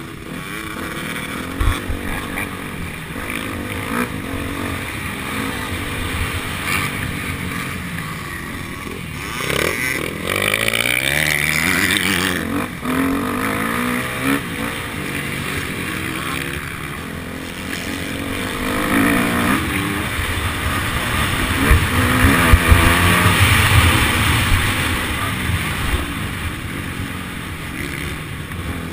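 Motocross bike engine heard close up from on board, revving up and falling back again and again as the rider shifts through the gears around the track, with low thumps mixed in. It swells loudest twice, about a third of the way in and again past the middle.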